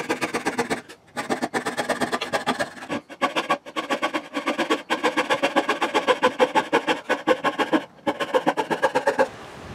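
Coping saw cutting a curve in a wooden board with rapid, even back-and-forth strokes, pausing briefly a few times and stopping shortly before the end.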